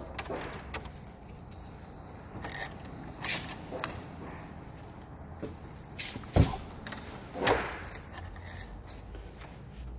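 Scattered metallic clicks and clinks of small lock hardware (screws and the deadbolt's mounting parts) being handled and fitted while the digital deadbolt is fastened to the door, with one heavier knock a little past halfway.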